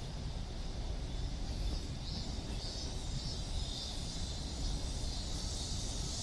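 Outdoor walking ambience: cicadas buzzing high and steady with slight pulsing, over a constant low rumble of distant traffic and wind on the microphone.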